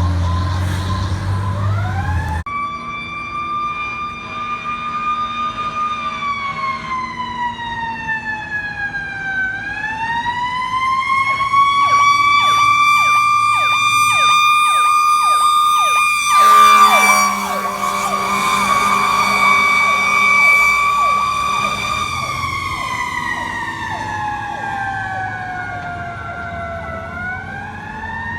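Emergency vehicle siren wailing, its pitch slowly rising and falling, while a second siren yelps in rapid repeated sweeps from about a third of the way in. An air horn chord cuts off about two seconds in, and a short loud blast comes a little past the middle.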